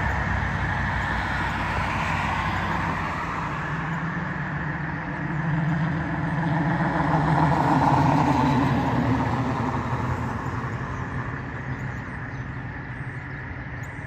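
Road traffic on a multi-lane road: the steady tyre and engine noise of passing cars, swelling as a vehicle goes by in the middle and easing off near the end.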